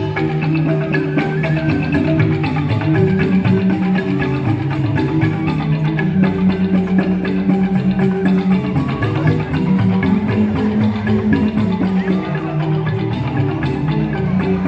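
Balinese joged bumbung gamelan playing: bamboo-tube xylophones (grantang) struck with mallets in fast, dense patterns over percussion, without a break.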